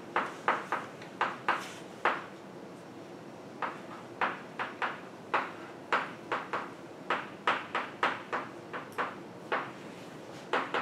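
Chalk writing on a blackboard: a quick, uneven run of short taps and scratches, about two a second, with a pause of about a second and a half after the first two seconds.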